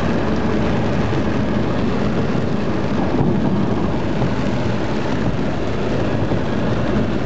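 Car driving on a flooded road in a downpour, heard from inside the cabin: engine, rain and water under the tyres blend into one steady, loud noise.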